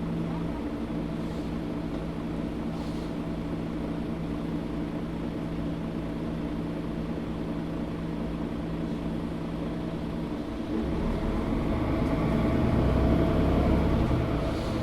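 Mercedes-Benz O530 Citaro G articulated bus heard from inside the cabin, its engine running with a steady hum. About ten seconds in it grows louder and heavier as the bus accelerates.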